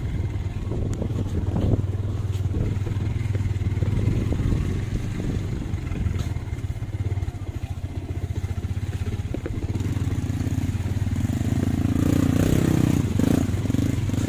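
Small motorcycle engine running steadily at low riding speed, growing a little louder near the end.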